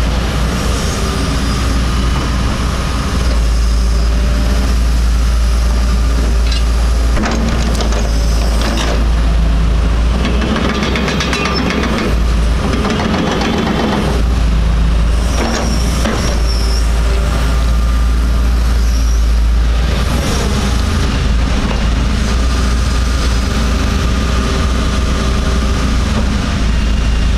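Hitachi ZX225 crawler excavator's diesel engine running under load while its hydraulics swing the upper structure and move the boom and arm. There are short knocks and squeaks around the middle.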